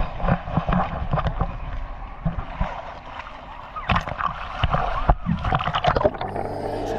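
Water sloshing and gurgling around a camera at the waterline, with many sharp knocks and splashes. Background music comes in about six seconds in.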